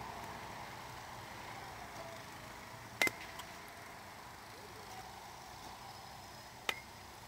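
A metal baseball bat striking a pitched ball: one sharp, loud ping about three seconds in, and a second, fainter ping near the end.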